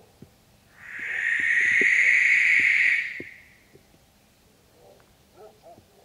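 Barn owl giving one long, harsh, hissing screech of about two and a half seconds, starting about a second in.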